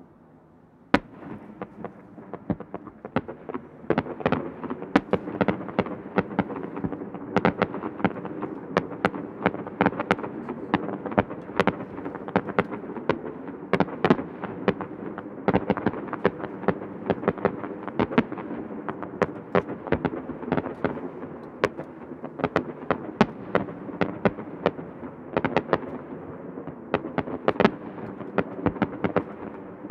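Aerial fireworks shells bursting in quick succession, starting about a second in: many sharp bangs with a rolling rumble between them.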